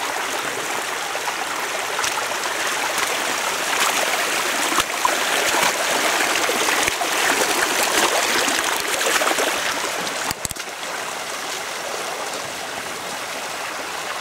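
Stream water running steadily, an even rushing hiss that grows somewhat louder in the middle. A brief click and dropout about ten seconds in.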